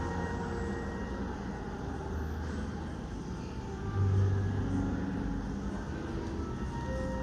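Steady low rumble of road traffic, swelling louder about four seconds in.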